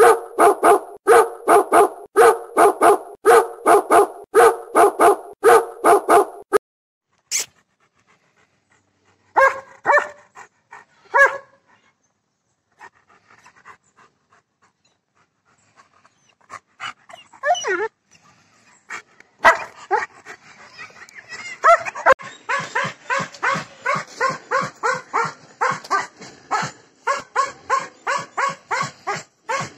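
Dogs barking in quick, regular runs of about three barks a second. There is a sparser stretch with gaps in the middle, and the barking grows dense again from about two-thirds of the way in.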